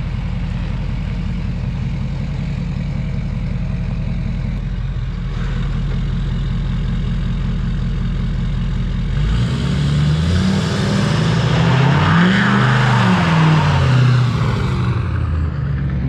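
Ford 6.7 Power Stroke V8 turbo-diesel running steadily, then from about nine seconds in revving up and down again and again, with a rising hiss of spinning tyres: a burnout.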